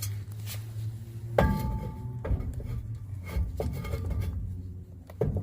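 Metal clinks and scrapes from a truck's drum brake being fitted and spun, with one loud ringing clank about a second and a half in. The brake drum is being tried over new shoes while the star-wheel adjuster is set.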